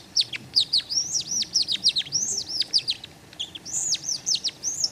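Small hand-twisted squeaker bird call worked in quick turns, giving a fast run of short, high chirps, several a second, imitating songbird chirping.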